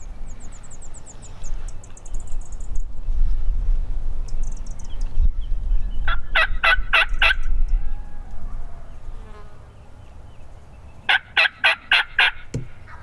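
A wild turkey gobbler gobbling twice, about six and eleven seconds in, each gobble a quick rattle of notes. A small bird's high, fast trill near the start, and a low rumble of wind through the first half.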